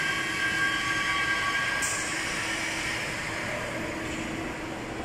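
Aicrane AQ-NLH 10-ton European-standard electric overhead crane running on test, a steady mechanical whine of its drive motors and gearing over a rolling rumble. The whine sinks slightly in pitch and the sound eases a little toward the end.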